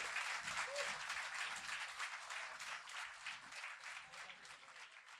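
Audience applause fading out, the clapping thinning and dying away over a few seconds.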